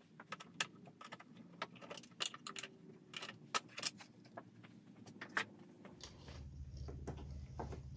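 Light clicking and rattling of hand-held tools and parts as the plastic engine cover of a lawnmower is handled and lifted off. A low steady hum comes in about six seconds in.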